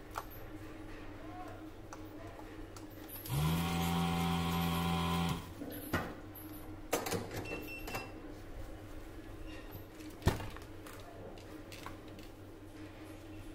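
Electric desoldering gun's vacuum pump running for about two seconds, spinning up quickly and then cutting off, as it sucks molten solder from the IGBT's pins. A few sharp clicks follow.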